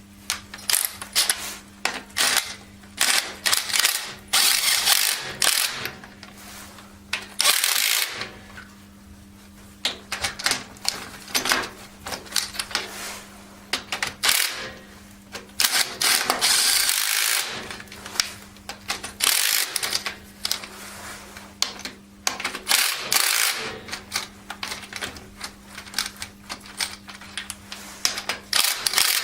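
Hands-on work with metal hand tools and tractor parts: irregular metallic clicks, clanks and rattling in bursts, over a steady faint low hum.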